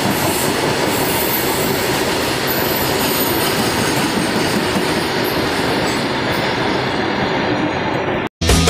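Freight train of covered boxcar wagons running past at speed: a steady, loud rush of wheel-on-rail noise with thin, high wheel squeal in the first few seconds. It cuts off abruptly near the end, and rock music starts.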